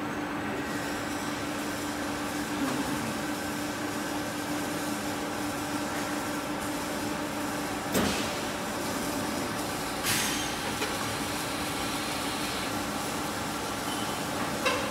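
Foundry sand-mold handling line machinery running with a steady mechanical hum, broken by sharp clanks twice in the second half, a couple of seconds apart, and once more near the end.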